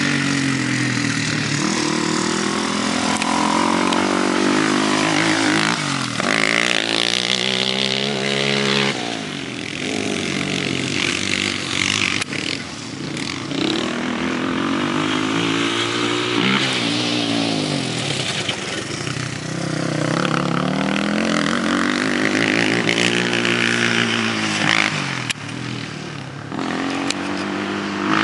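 Kawasaki KFX400 ATV's single-cylinder four-stroke engine under hard riding, revving up and dropping back again and again as the rider goes on and off the throttle. The pitch climbs through each run and falls away between them.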